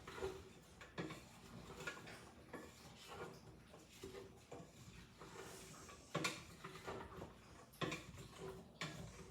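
Scattered light taps and clicks of kitchen utensils and containers being handled at the stove, with the sharpest knocks about six and eight seconds in.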